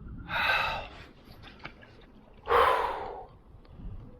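A man's two heavy, breathy exhalations, a few seconds apart, with faint clicks between: out-of-breath excitement just after landing a big bass.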